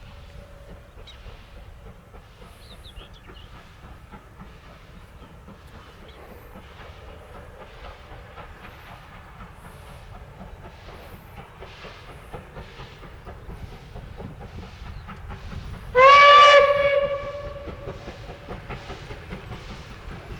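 Steam locomotive 23 042 working a train, its exhaust beats coming in a steady rhythm that quickens toward the end. About three-quarters of the way through comes one short, loud blast of its steam whistle.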